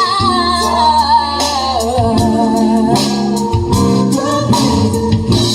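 A love song played back through a DIY passive line-array speaker system with a dual-18-inch subwoofer: a held, gliding sung line over heavy bass notes and regular percussion hits.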